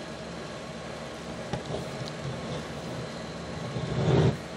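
Steady hum and hiss of room noise, with faint clicks and rubbing from a plastic action figure being handled and turned in the hand. A brief louder rustle comes about four seconds in.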